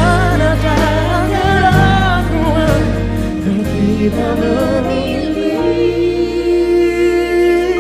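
Live pop music: vocals sing wordless melodic runs over the band, then a long held note with vibrato near the end. The bass drops out about five and a half seconds in.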